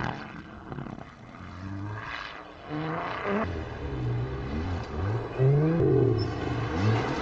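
Rally car engine accelerating hard, its pitch climbing and dropping back again and again as it shifts up through the gears, getting louder toward the end.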